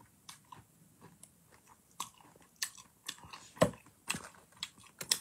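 A person chewing chicken close to the phone's microphone: irregular soft crunches and mouth clicks, a few louder ones in the second half.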